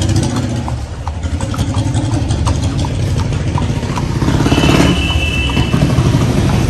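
A small motor vehicle's engine running close by, a steady low pulsing, with scattered light clicks and a brief high two-note tone about four and a half seconds in.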